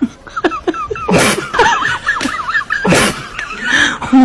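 Dog whining in a string of high, wavering squeals, with a few sharp clicks and two short hissing bursts, one about a second in and one near three seconds.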